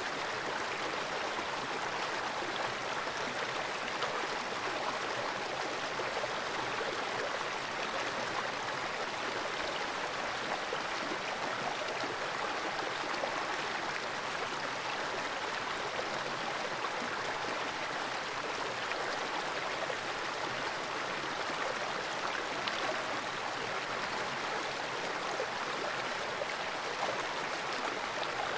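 Fast-flowing stream water rushing through a small pool, a steady even rush with no breaks, picked up by a camera submerged in the water.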